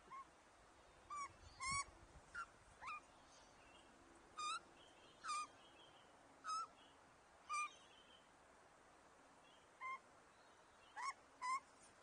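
Grey butcherbird calling: about a dozen short, clear notes at uneven intervals, some in quick pairs, several with a slight upward slide.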